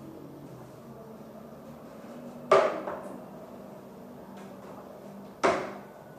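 Two sharp knocks about three seconds apart, each with a short ringing tail: hard household objects being struck or set down.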